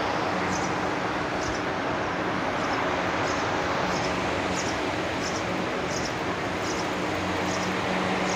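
Steady whir of ceiling fans with an even electrical hum and hiss, and faint high-pitched chirps repeating about every two-thirds of a second.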